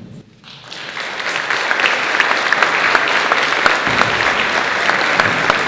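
Audience applauding, beginning about half a second in and swelling to full, steady clapping within about a second.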